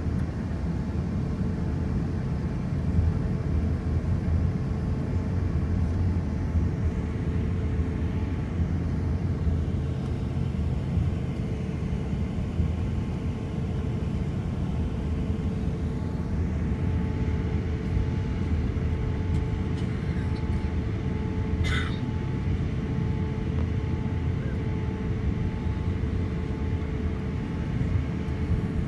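Steady cabin noise of an airliner taxiing, heard from inside the cabin: a low rumble with a steady engine hum. A brief high chirp comes about three-quarters of the way through.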